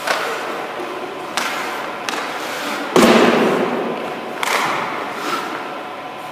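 Hockey goalie's skate blades scraping and cutting the ice in a series of short pushes and stops, each a sharp scrape fading into hiss. About three seconds in comes a loud, heavy thud of the goalie's equipment.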